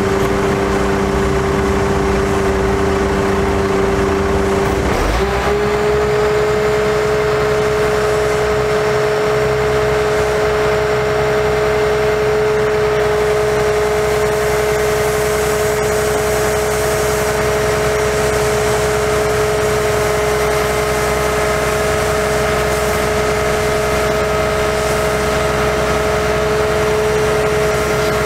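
Bucket truck's Cummins ISC diesel engine running steadily to power the boom's hydraulics as the Hi-Ranger boom lifts the bucket, with a steady whine that steps up slightly in pitch about five seconds in and then holds.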